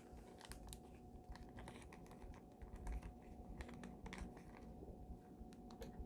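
Faint, scattered light clicks and taps of small 3D-printed plastic parts and a magnet being handled, over a faint steady hum.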